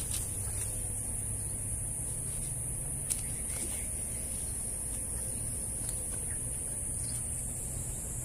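Steady outdoor background: a constant high-pitched hiss over a low, even rumble, with a short sharp click about three seconds in.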